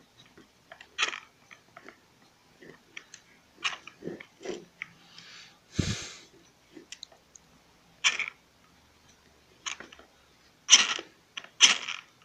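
Screwdriver and fingers working on a small plastic part of a toy RC car motor: irregular clicks, scrapes and creaks of plastic. There is a dull thump about six seconds in, and the two loudest rasping scrapes come near the end.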